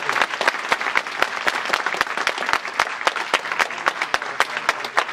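Audience applauding with dense, steady clapping after a speaker finishes.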